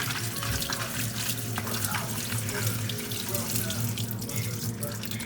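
Water running in a steady splashing stream, stopping near the end.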